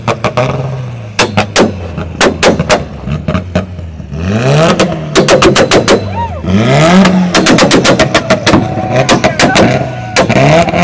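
Modified car's engine revved while parked, rising twice about four and six and a half seconds in, with rapid loud pops and bangs from the exhaust throughout.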